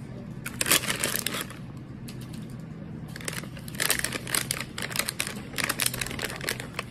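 Plastic snack packets and other small items being handled and shifted on a desk: crinkling and light clicking, in two spells.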